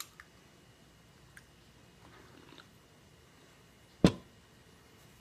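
Quiet room with a few faint small clicks, and one sharp knock about four seconds in.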